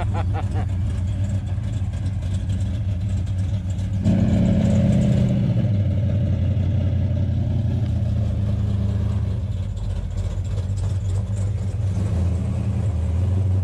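1968 Dodge Charger's Hemi V8 running as the car pulls away, swelling louder for a second or so about four seconds in as the throttle opens, then settling back to a steady run.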